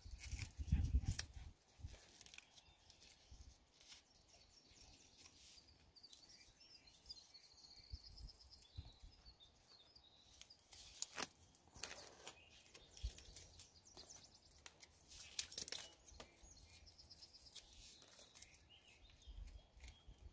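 Quiet outdoor ambience: faint bird chirps, a brief low thump about a second in, and scattered small clicks and knocks.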